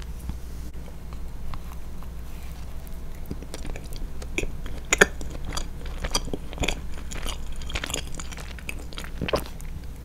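Close-miked chewing and biting of a chocolate-coated fondant chocolate cake: moist mouth clicks and crunches that start a few seconds in and go on irregularly, the sharpest about halfway through.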